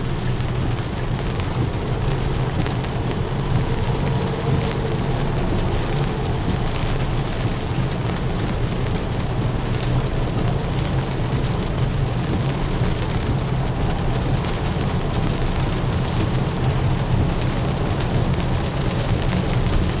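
Steady rain and wet-road tyre noise from a 2023 Tesla Model Y driving at highway speed: a constant low road rumble under a fine patter of raindrops.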